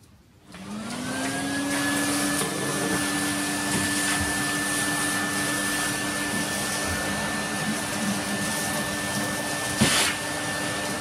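Vacuum cleaner switched on about half a second in, its motor spinning up to a steady whine as the hose sucks up debris from under a kitchen base cabinet. A short sharp noise stands out near the end.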